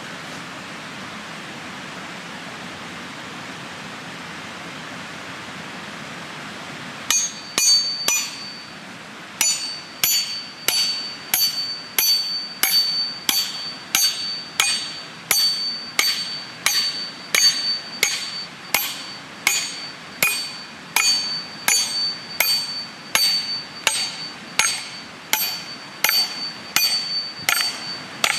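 A steady rushing background noise, then, about seven seconds in, hammer blows with a bright metallic ring on steel splitting a wild cherry log: three quick strikes, then a regular beat of about one and a half blows a second.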